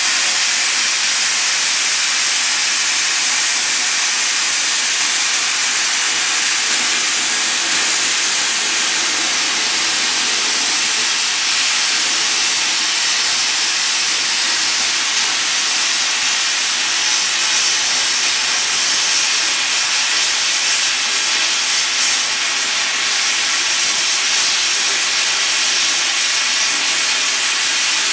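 CNC plasma cutting torch cutting through a large-diameter steel pipe, giving a loud, steady hiss from the plasma arc.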